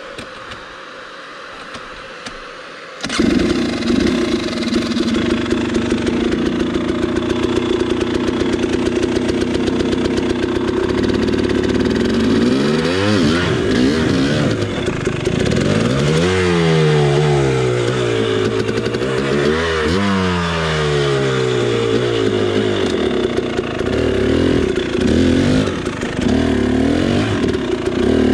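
A KTM 300 XC two-stroke dirt bike engine starts suddenly about three seconds in, then runs. Its pitch rises and falls several times as the throttle is blipped, most of all in the middle of the stretch.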